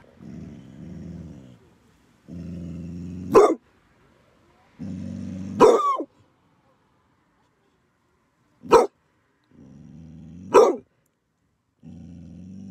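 Large mastiff-type dog growling low in a car's back seat: five growls, three of them ending in a loud bark, and one more bark on its own.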